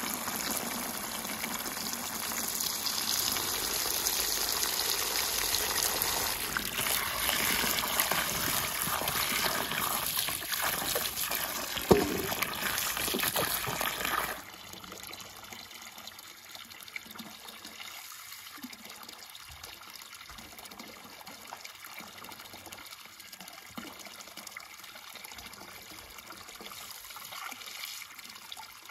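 Water from a hose pouring into a basin of vegetables and splashing as hands rub them clean, with one sudden thump about twelve seconds in. About halfway through the rushing cuts to a quieter trickle.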